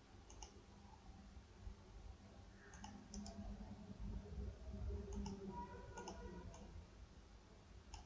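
Faint computer mouse clicks, several of them at irregular intervals, as a line is placed in CAD software, over a low background hum.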